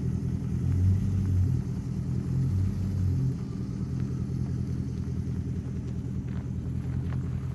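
Dodge Daytona R/T's engine running with a low, pulsing rumble, easing a little about three seconds in.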